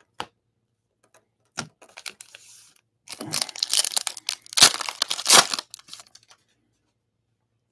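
Trading-card packaging crinkling and tearing as cards are handled: a few light clicks, then a dense crackle of plastic or foil wrapper for about three seconds, loudest near the end.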